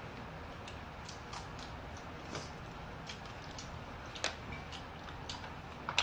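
Pork frying in a pan, with a faint hiss and irregular small pops and ticks from the spitting fat. A sharper click of a utensil against the pan comes about four seconds in and again near the end.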